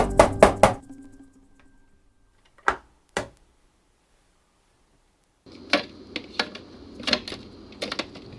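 Plucked background music fades out in the first second. After that, two sharp clicks, and from about halfway a run of irregular light clicks and taps over a faint steady hum.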